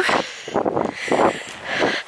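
Footsteps on a sandy path, about two steps a second, with wind blowing across the microphone.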